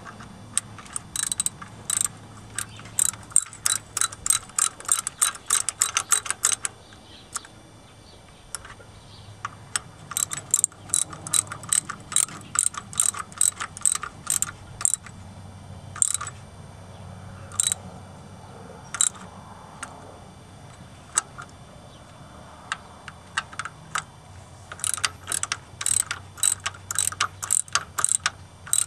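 Socket ratchet clicking in runs of quick clicks with pauses between, a few single clicks in the middle. It is turning the centre bolt of a gear puller to draw the fiber (phenolic) camshaft timing gear off a Ford 4.9 L inline-six.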